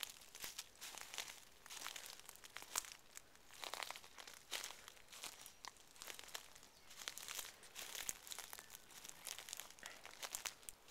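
Faint, irregular crunching and crackling of footsteps on wood-chip mulch.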